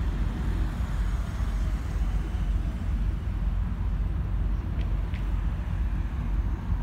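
Steady low rumble of road traffic, cars and trucks driving across the bridge close by.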